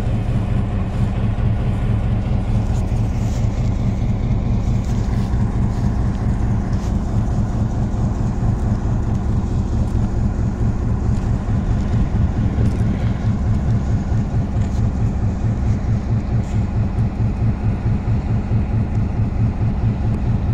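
EMD E8 diesel locomotive's twin 12-cylinder 567 engines idling: a steady low diesel rumble with a fast, even throb.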